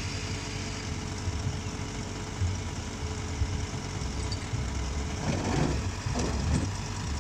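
Komatsu PC 200 excavator's diesel engine running steadily at a low, even rumble.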